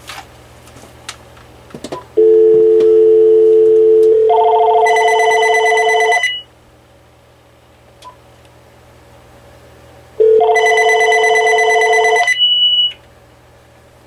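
VTech CS6124 DECT 6.0 cordless phone ringing twice with an electronic ringtone: each ring starts as a low two-note buzz and turns into a brighter many-note chime. The second ring is shorter and ends in a brief high tone, the answering system being set to answer after two rings.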